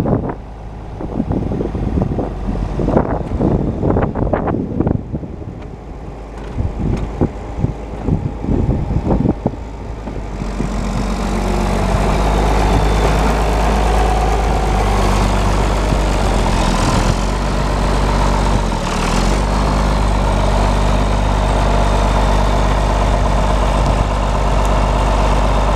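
John Deere 4430's turbocharged six-cylinder diesel engine idling steadily. Wind gusts on the microphone for the first ten seconds or so, and after that the engine comes through clearly and evenly.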